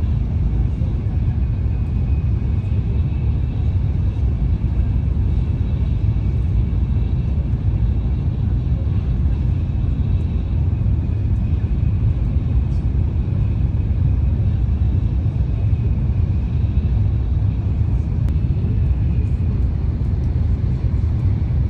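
N700A Shinkansen bullet train running at high speed, about 260 km/h, heard inside the passenger cabin: a steady, even rumble with a faint high tone above it.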